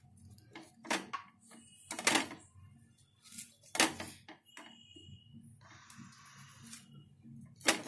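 Bread slices being torn by hand and dropped into a jar: a scattered series of light knocks and taps against the jar and plate. A short soft rustle comes about six seconds in.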